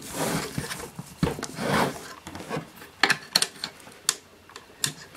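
Hands and tools working on a metal avionics unit during disassembly: scraping and rubbing, with sharp clicks and knocks about a second in, several around three seconds in, and near the end.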